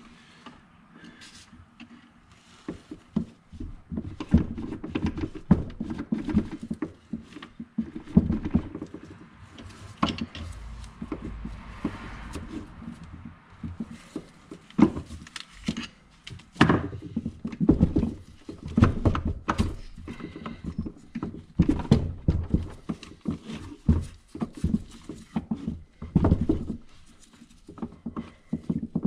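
Irregular metal knocks, clunks and scrapes as the cocked internal assembly of a Tuff Torq K46 hydrostatic transaxle is rocked and worked to lift it out of its housing. The strikes come every second or so, quieter in the first few seconds.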